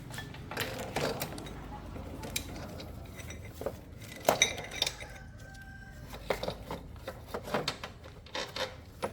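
Scattered metallic clinks and knocks of tools and motorcycle parts being handled, irregular and sharp, over a steady low background hum.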